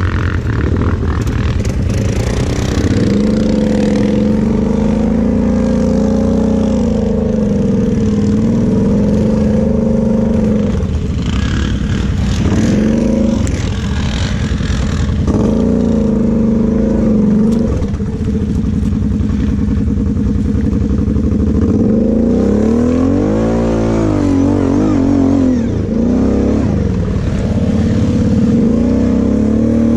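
Quad bike (ATV) engine running close under the rider, its revs held for stretches, dropping briefly several times and rising and falling repeatedly in the last third as it rides over rough ground.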